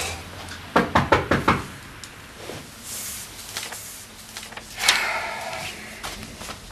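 A quick run of about five knocks on a door about a second in, then a longer door sound near five seconds in.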